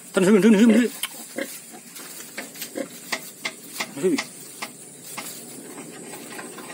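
Newborn piglets suckling at a sow: a run of small wet clicks and smacks with straw rustling. A loud wavering call opens it in the first second, and a short call comes about four seconds in.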